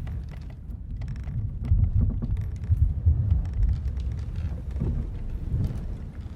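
Ship-at-sea ambience: a deep rumbling wash of sea and wind that swells in the middle and eases toward the end, with scattered small creaks and clicks from the ship's timbers.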